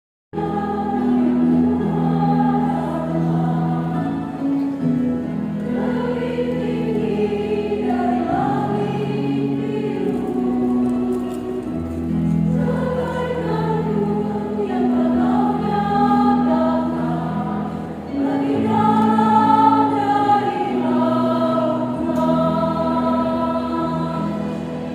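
Church choir singing a hymn in harmony, with long held chords that change every second or two; it starts abruptly a moment in.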